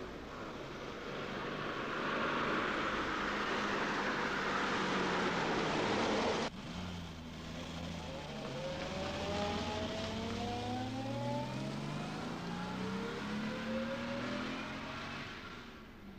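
Car driving: a rising rush of engine and road noise that cuts off abruptly about six and a half seconds in, then an engine pulling away with its pitch climbing steadily as it accelerates, fading out near the end.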